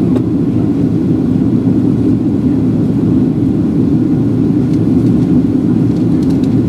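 Steady cabin roar inside a Boeing 737-700 in descent: engine and airflow noise, strongest in the low end. A few faint clicks come in the second half.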